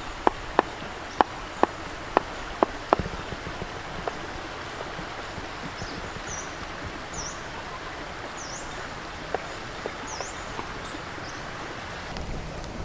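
A kitchen knife chopping herbs, about eight sharp chops in the first three seconds, over the steady rush of a shallow river. A small bird chirps a handful of times in the middle.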